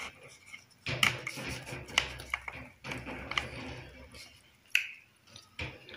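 Eating sounds close to the microphone: chewing, with several sharp clicks and crinkles from a paper food wrapper being handled.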